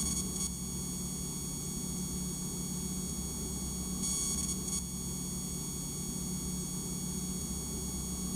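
Steady engine drone of a small propeller aircraft heard from inside the cabin, with a thin high whine over it, swelling briefly about four seconds in.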